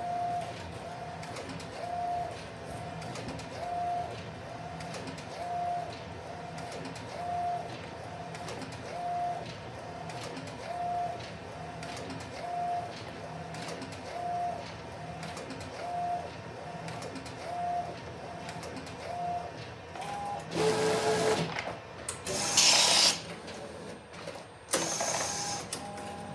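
Epson SureColor F570 wide-format printer printing: the print-head carriage makes a short whine on each pass, repeating about every 1.7 seconds over a steady mechanical hum. In the last six seconds come three louder, noisier stretches of mechanism as the printed sheet feeds out.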